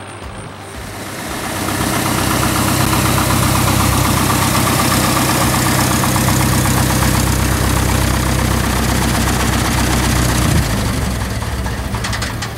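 Cessna 172N's four-cylinder Lycoming piston engine and propeller idling steadily, heard close up. About ten and a half seconds in the engine note breaks off and the sound winds down.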